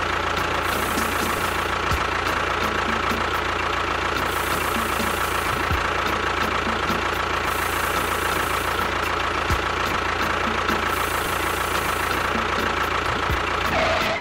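A small motor running steadily with a constant whine and a low hum, with no change in speed.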